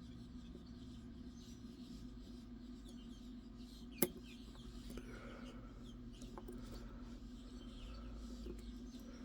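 Faint scraping and ticking of a lock pick working the wafers of a Magnum Mont Blanc wafer lock under tension, with one sharp click about four seconds in, over a steady low hum.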